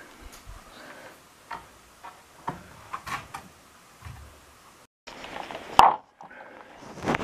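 Scattered light clicks and knocks, with one sharp click a little before six seconds; no machine is running.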